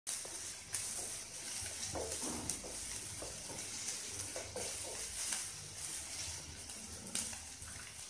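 Chopped vegetables sizzling in hot oil in a kadhai while a wooden spatula stirs and scrapes them in irregular strokes.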